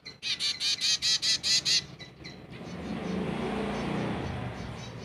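Zebra finch fledgling giving begging calls while being hand-fed: a fast run of high calls, about six a second, for about a second and a half, then fainter calls continue.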